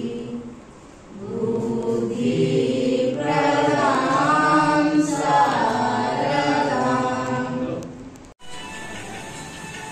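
Voices singing a prayer chant together, with pitch sliding up and down in a sung melody. It cuts off abruptly about eight seconds in.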